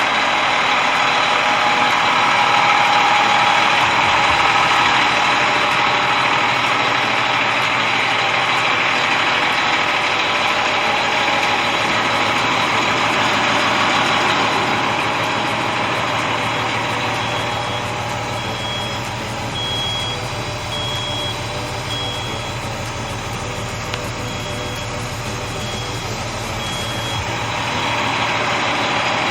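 Kenworth T800 heavy truck with its Cummins diesel engine running, with a loud steady rushing noise over a low hum. In the second half a backup alarm beeps about once a second.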